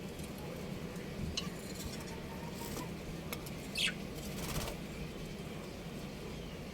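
A few scattered short budgerigar chirps over a steady low background hum; the clearest is a falling call a little under four seconds in.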